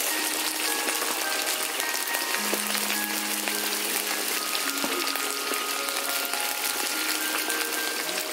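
Sausage and potato slices sizzling in a hot wok, a steady crackling hiss, under soft background music with long held notes.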